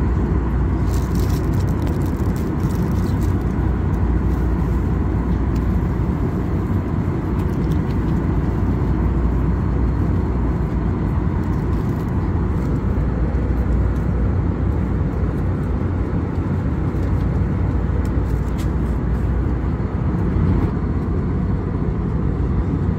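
Steady, loud low rumble of an Airbus A321neo's cabin, the even roar of engines and airflow heard from a passenger seat, with a few faint clicks.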